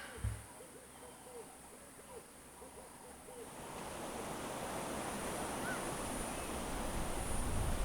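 Wind rising over the microphone, a hissing noise that builds after about three seconds with low buffeting near the end. Before it, faint short calls repeat in the background.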